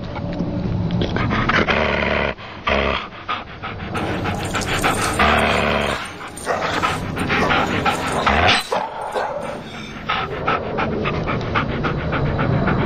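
Pet dogs vocalizing excitedly, with panting, while they reach up toward someone above them.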